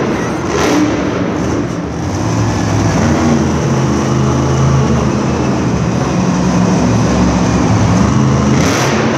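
Wolf's Head Oil monster truck's supercharged V8 engine revving up and down as the truck drives across the dirt arena floor.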